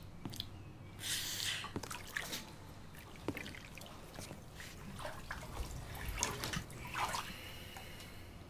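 Water sloshing, splashing and dripping in a tub as a person moves about in it, in irregular splashes; the biggest come about a second in and again about five to seven seconds in.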